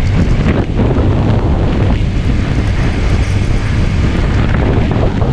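Steady wind buffeting a GoPro's built-in microphone while riding a 2015 Honda Grom, with the bike's 125 cc single-cylinder engine running underneath.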